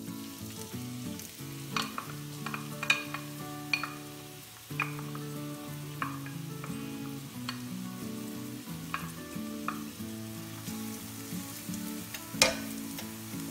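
Chopped onions sizzling in hot oil in a non-stick frying pan, with a wooden spoon clicking and scraping against the pan now and then, the loudest knock near the end. Soft background music with sustained notes plays underneath.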